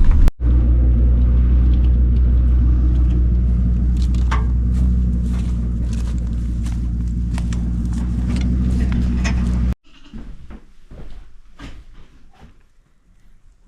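A vehicle engine idling steadily, with short sharp sounds over it in its second half. It cuts off suddenly about ten seconds in, leaving quieter scattered sounds.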